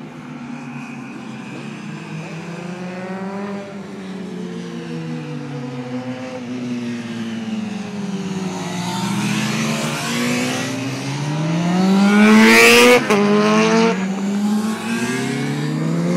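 Racing motorcycles revving up and down, engine pitch rising and falling over and over with more than one bike heard at once. It grows louder as a bike comes closer and is loudest about twelve seconds in, where the throttle is cut sharply for a moment before it picks up again.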